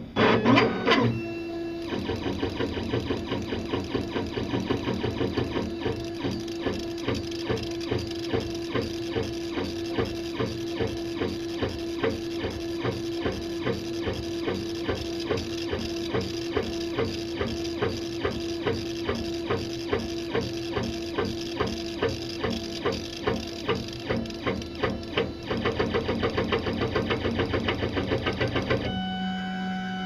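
Laser engraver running an engraving pass on a plastic knife scale: a fast, even mechanical rhythm over a steady hum, starting about a second in and stopping near the end.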